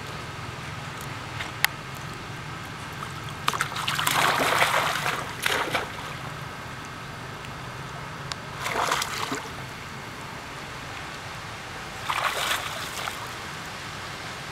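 Water splashing and sloshing as macaques swim and dive in a shallow lake, in three bursts: a longer one about four seconds in, then shorter ones near nine and twelve seconds.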